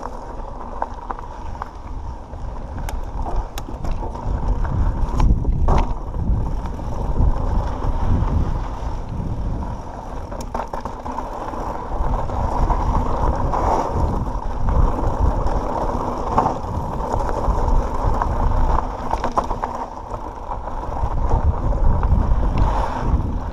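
Pivot Switchblade full-suspension mountain bike on 27.5+ tyres being ridden over a dirt trail: uneven tyre rumble with scattered clicks and rattles from the chain and frame.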